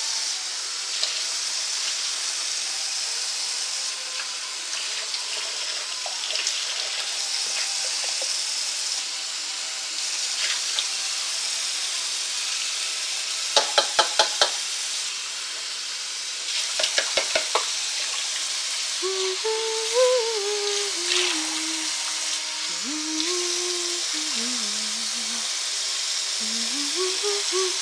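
Water running from a kitchen tap into the sink while dishes are rinsed. Around halfway there are two quick runs of sharp clinks, four or five each, a few seconds apart. In the last third, a pitched sound wavers and steps up and down.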